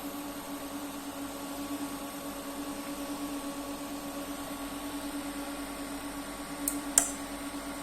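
Online UPS starting up after its blown input fuse was replaced: a steady electrical hum with a faint high whine. A sharp click comes near the end, about seven seconds in.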